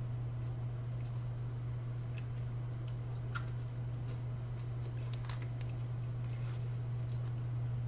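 A steady low hum with faint, scattered crunches and clicks of someone chewing a wheat cracker.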